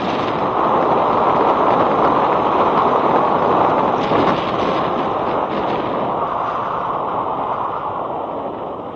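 Wind rushing and buffeting over the microphone of a helmet-mounted action camera while riding an electric scooter at speed, easing off over the last couple of seconds.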